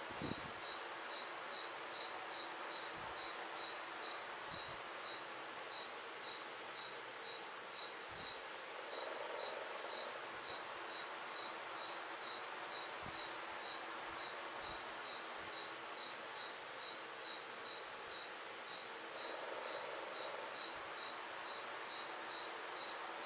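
Steady high-pitched insect-like trill with a faint regular pulse a few times a second, and occasional faint soft taps from hands working the crochet.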